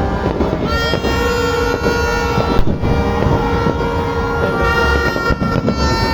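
Horns blaring together in overlapping held tones of different pitches, with a sharp bang about two and a half seconds in.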